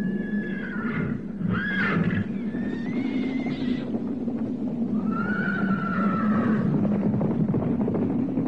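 Horses neighing several times in the film's soundtrack, over a steady low rumble.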